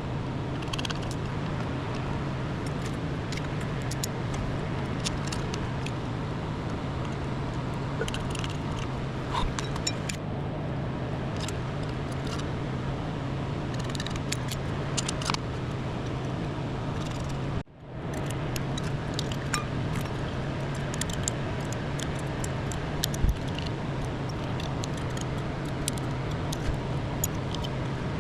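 Steady running hum with an even rushing noise, like a small electric motor or blower, cut off abruptly once about eighteen seconds in and resuming, with light metallic clicks and clinks scattered throughout.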